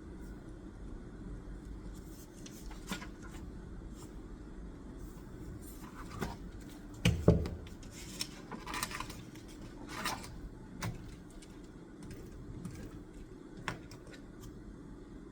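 Scattered small clicks, taps and rustles of things being handled on a desk, with a louder low thump about seven seconds in, over a steady low room hum.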